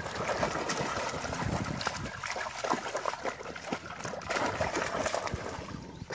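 Several dogs paddling and splashing through shallow water, a steady run of small splashes and sloshing.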